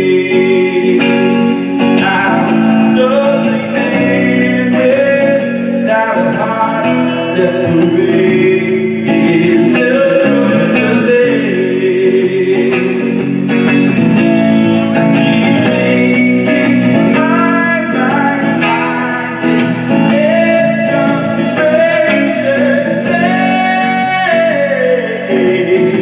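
Live band music with guitar: steady chords under a melody line that wavers in pitch and slides down near the end.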